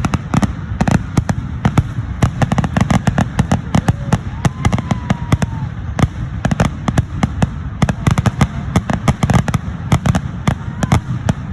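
Fireworks going off in a dense, continuous barrage, many sharp bangs a second over deep booms, the massed salvo typical of a show's grand finale.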